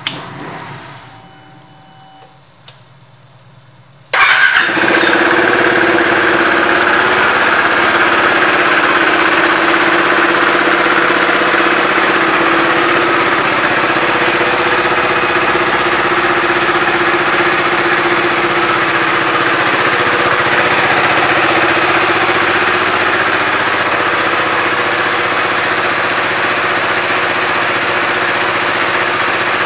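2016 KTM RC 390's single-cylinder four-stroke engine started up about four seconds in, firing at once and then idling steadily.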